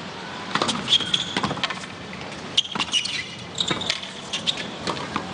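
Tennis serve and rally on a hard court: a string of sharp racket-on-ball hits a fraction of a second to a second apart, with short squeaks from shoes on the court surface over a low crowd hum.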